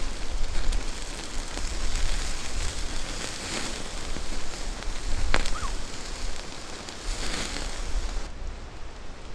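Campfire crackling and hissing, with one sharp pop about five seconds in.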